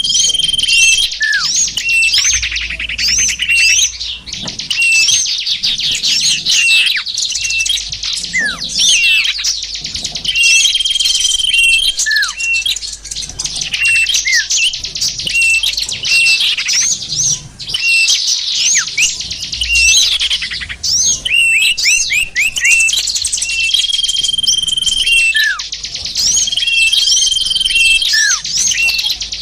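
Small songbirds chirping and twittering densely and without pause: a bird-lure (pikat) recording meant to draw small birds in. Quick falling chirps, fast trills and short steady whistles repeat over and over.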